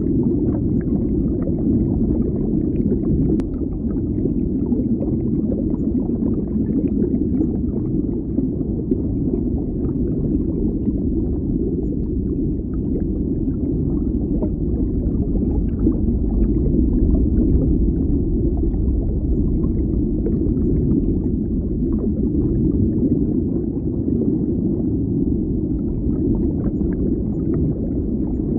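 Steady, muffled underwater bubbling: a low rumble with faint small pops and ticks scattered through it.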